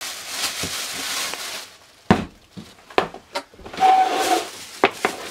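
A plastic carrier bag rustling, then several sharp knocks and a shuffle of cardboard as pizza boxes are set down and opened on a wooden table.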